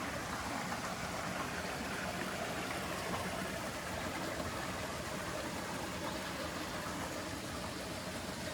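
Steady rushing of a jungle stream spilling over a small waterfall, an even unbroken wash of water noise.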